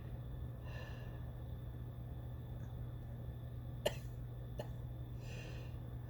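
A woman's short breathy catches in the throat, twice, as she tries to bring on a sneeze with sneezing powder. A sharp click comes about four seconds in, with a fainter one just after, over a steady low hum.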